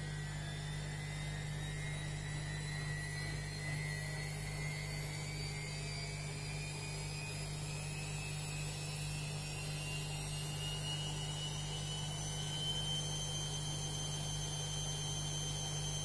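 Front-loading washing machine running, a motor whine rising slowly in pitch over a steady low hum as the drum speeds up, levelling off near the end.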